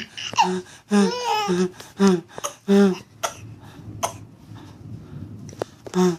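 A run of short, sharp vocal bursts about half a second apart: sneezing or cough-like sounds mixed with a baby's laughter. They stop for about three seconds before another burst near the end.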